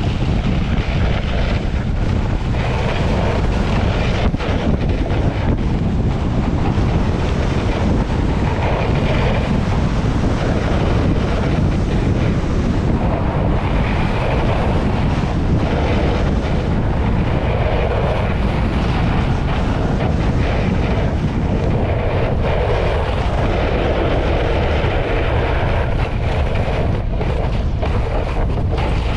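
Steady wind rush buffeting a helmet-mounted camera's microphone while riding a snowscoot down a groomed piste, with the hiss and scrape of the scoot's skis over the snow underneath.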